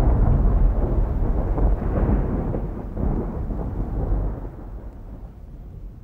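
Deep rumbling noise, heaviest in the bass, that fades away steadily over several seconds.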